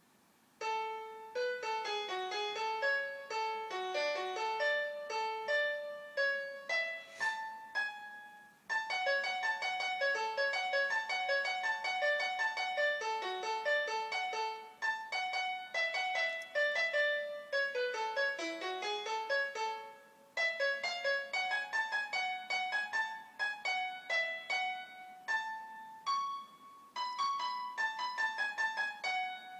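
Piano instrument in GarageBand on an iPad playing a melody over chords, one note after another. There are short pauses about a third and two thirds of the way through.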